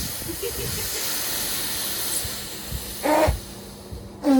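Punctured lithium polymer drone battery cell venting, a steady hiss of escaping gas that dies down about three seconds in.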